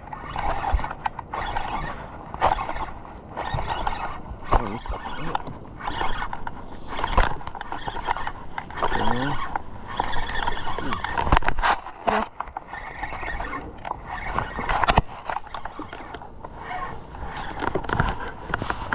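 Noise of a hooked smallmouth bass being fought from a small boat: handling knocks and rustling over a steady rush of wind and water, with a few short rising squeaks.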